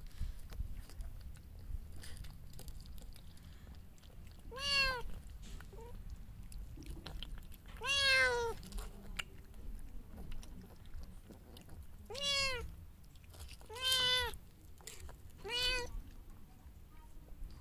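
A cat meowing five times, a second or more apart, each meow rising and then falling in pitch, with faint clicks in between.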